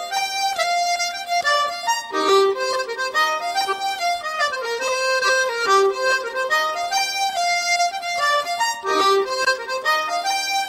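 Instrumental music: a quick melody stepping up and down over a held lower note, with no singing.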